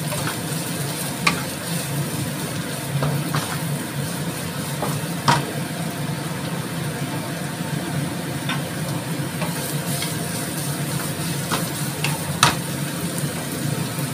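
Carrots and chilies sizzling in a frying pan while a wooden spatula stirs them at first, with a few sharp knocks against the pan, the loudest about five seconds in and near the end. A steady low hum runs underneath.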